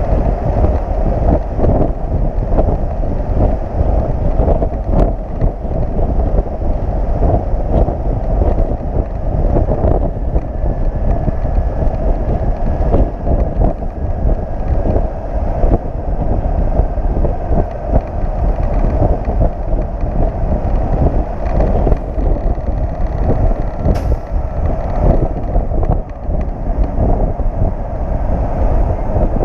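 Steady rush of wind and road noise from riding on the deck of a flatbed tow truck at highway speed, buffeting the microphone.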